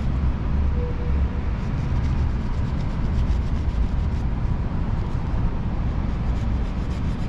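Steady low rumble with a faint, thin high tone running through it.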